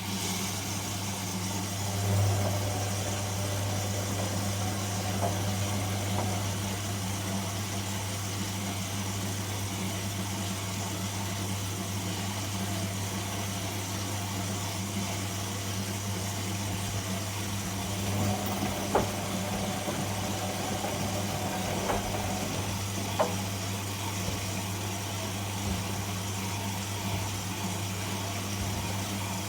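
Whirlpool Indiana 1400 washing machine switching abruptly into a steady low hum with a hiss of water, with a few faint clicks in the second half. The steady, unrising hum fits a drain pump or water inlet valve rather than a spin.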